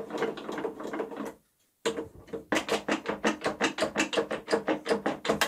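Bench vise handle being spun to wind the jaw screw, giving a quick, even run of clicks and rattles, about five a second. A short dead silence breaks it about a second and a half in.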